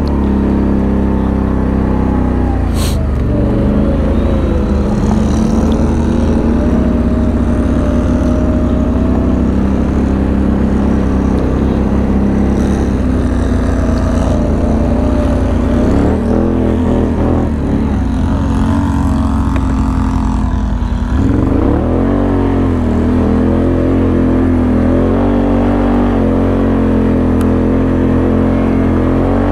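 Can-Am Outlander 1000's V-twin engine running close by, revving up and down with the throttle over rough ground, with a single sharp knock about three seconds in.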